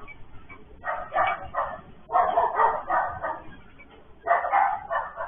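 Dog barking in three bursts of quick barks, heard through a security camera's microphone that cuts off the high end.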